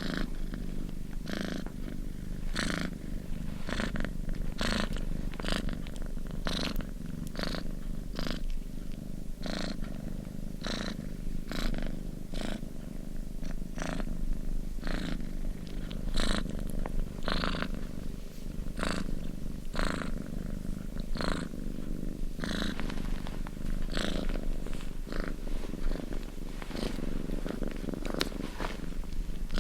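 Domestic cat purring steadily: a continuous low rumble with a short breathy rasp on each breath, somewhat more than once a second.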